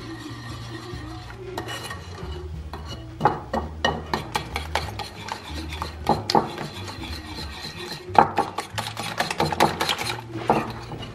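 Wire whisk beating flour into an egg-and-milk batter in a porcelain dish, the wires scraping and clicking against the dish. Soft stirring at first, then quick, rapid strokes from about three seconds in.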